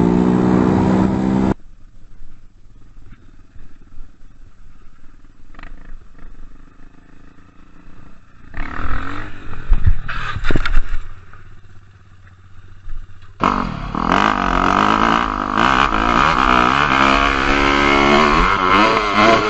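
Road vehicle engines in edited clips. An engine runs steadily, then cuts off abruptly to quieter road noise with a few knocks. About two-thirds in, a loud engine starts revving, its pitch rising and falling again and again.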